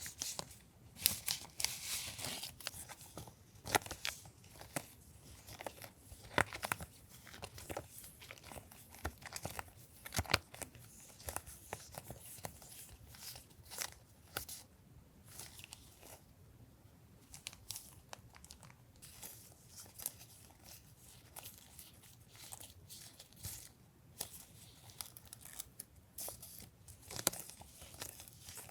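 Plastic packaging and paper being handled and torn open, an irregular run of crisp crinkles, rustles and small clicks, with a few sharper ones.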